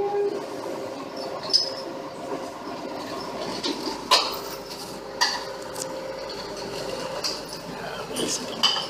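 Caterpillar tracked excavator running, a steady engine hum broken a few times by sharp metallic clanks.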